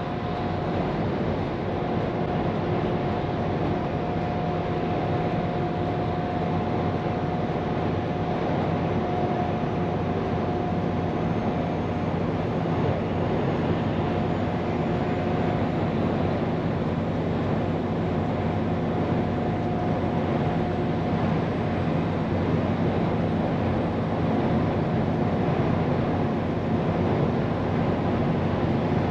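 Scania P410 truck's diesel engine running steadily at cruise, heard inside the cab with tyre and road noise and a thin steady whine over the drone.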